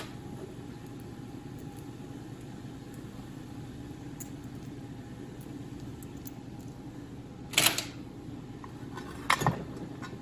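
A steady low hum, with two sharp knocks near the end as the metal mounting plate is worked loose from a snowmobile engine's crankcase.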